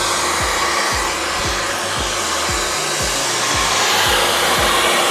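Handheld hair dryer blowing steadily during a blow-dry. A low beat of about two thumps a second runs underneath.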